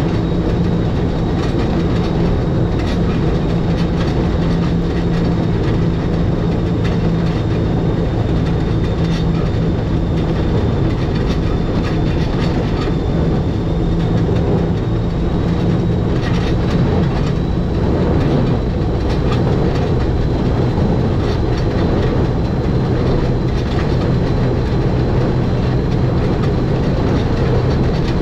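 Electric rack-railway train on the 800 mm gauge Schynige Platte line running downhill: a steady rumble of wheels and rack gearing with a low motor hum that drops in pitch about halfway through, and a faint high whine above it.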